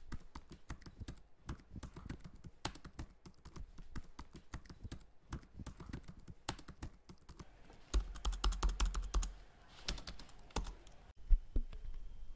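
Typing on a computer keyboard: a run of irregular keystrokes, with a quicker, heavier flurry about eight seconds in. After a brief pause near the end comes one single loud key click.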